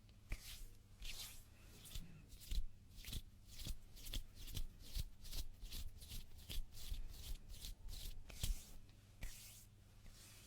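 Hands rubbing and brushing against each other close to a sensitive microphone: a run of short, dry swishing strokes, about two to four a second, quickest in the middle and slowing near the end. A faint steady low hum lies underneath.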